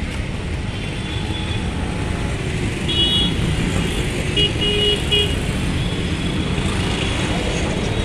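Steady city road traffic rumble, with short vehicle horn toots about three seconds in and again a few times around four and a half to five seconds.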